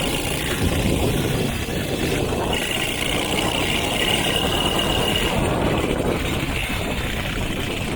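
Small petrol engine running steadily on a home-built Power Wheels ride-on.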